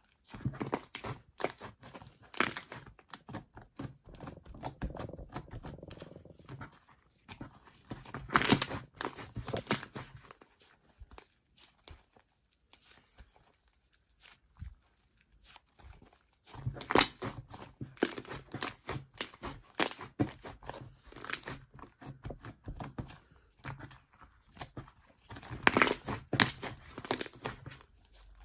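Slime mixed with shaving foam being stretched and squeezed by hand, giving sticky crackling and tearing sounds as the foamy slime keeps breaking apart. The sounds come in runs of a few seconds with quieter pauses between.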